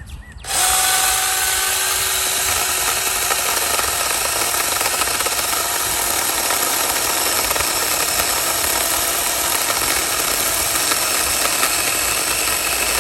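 Battery-powered handheld mini chainsaw starting about half a second in and running continuously as its chain cuts through a juniper branch.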